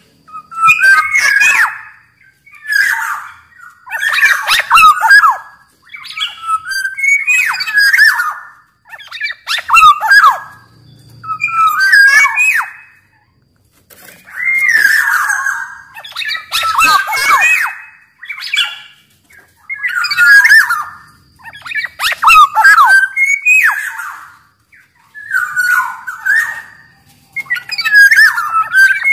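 Black-naped oriole (kepodang) singing, a run of short loud phrases about one every two seconds, fluty gliding whistles mixed with harsher rasping notes.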